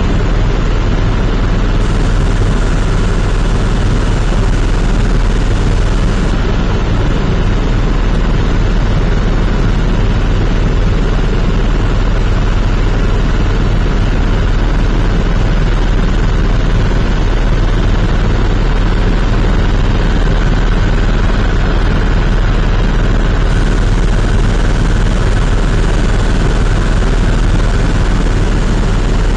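Helicopter heard from inside the cabin in steady flight: a loud, unbroken drone of rotor and engine with a strong low hum.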